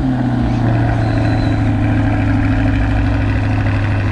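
Car engine idling steadily just after being started, holding one even pitch.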